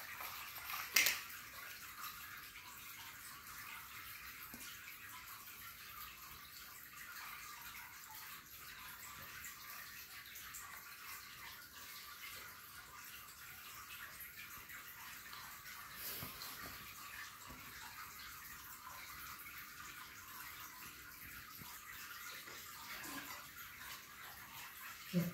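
Steady faint hiss with scattered light clicks and knocks of plastic Lego bricks and toys batted about on a tiled floor by playing kittens; one sharper knock about a second in.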